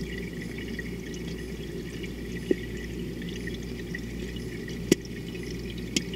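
Underwater ambience picked up by a submerged camera: a steady rushing hiss with fine crackling, broken by three sharp clicks, the loudest a little before the end.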